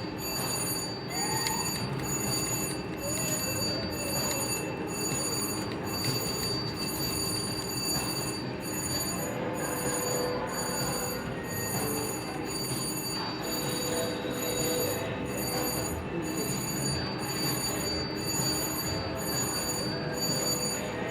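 Casino slot-floor din: electronic slot machines ringing and chiming, with steady high tones and short melodic jingles over a continuous murmur.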